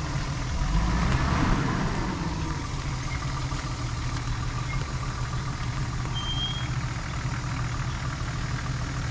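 Off-road 4x4's engine running steadily at low revs as it creeps through a rutted trail, swelling briefly about a second in before settling back.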